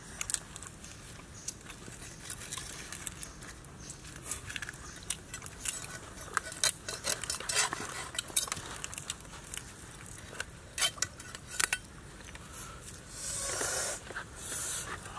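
Cleaver and knife blades cutting into the crisp roasted skin of a whole spit-roasted pig: a run of sharp crackling crunches and clicks, with a longer rasping stretch near the end.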